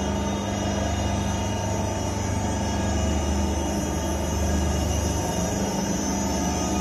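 A 50-litre explosion-proof vacuum planetary mixer running steadily, with its electric motors driving both the low-speed planetary stirrer and the high-speed disperser shaft at maximum speed (1500 rpm). It gives an even machine hum with a strong low drone.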